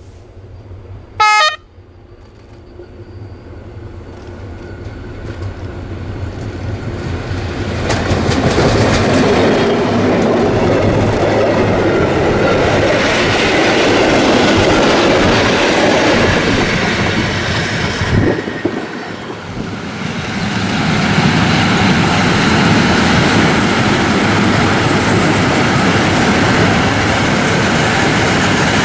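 Former ÖBB class 2143 diesel-hydraulic locomotive gives one short horn blast about a second in. Its diesel engine then grows louder as it approaches and passes close by, and its passenger coaches follow, rolling past with wheels clattering over the rails.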